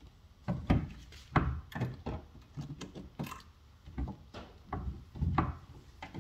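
Irregular knocks and clunks, about eight over a few seconds, from handling a wooden cabinet door and its metal concealed hinge as the hinge is worked into place on the face frame.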